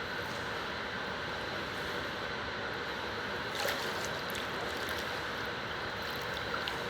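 Steady rushing water noise of a swimming pool, with one short faint noise about three and a half seconds in.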